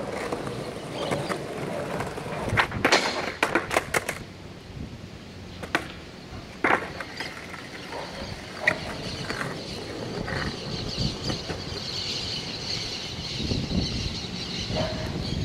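Skateboard on concrete during a kickflip attempt: wheels rolling, then a quick run of sharp wooden clacks of the board hitting the ground about three seconds in. Single board clacks follow a few seconds later.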